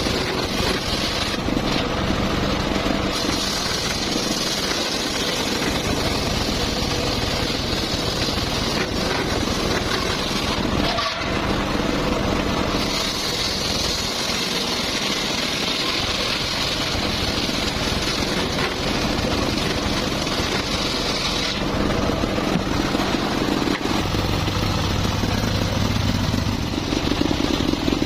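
Circular saw running steadily and sawing mahogany, the high cutting hiss growing stronger for long stretches and easing off between them.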